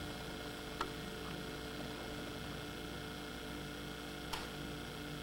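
Steady low electrical mains hum under a faint hiss, with two faint clicks, one about a second in and one near the end.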